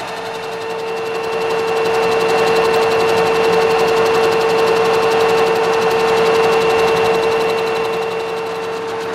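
Horizontal milling machine's arbor-mounted cutter milling a soft-jaw block. It makes a steady whine with a fainter high ring over the noise of the cut, growing louder about two seconds in. The spindle is running too fast and the cut is too dry, with only some kerosene added.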